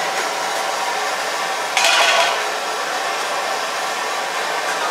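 Steady rushing background noise, with a brief louder burst of hiss about two seconds in.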